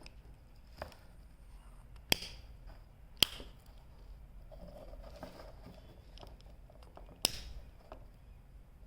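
A handheld lighter being struck: three sharp clicks, about two, three and seven seconds in, with a few fainter ticks between.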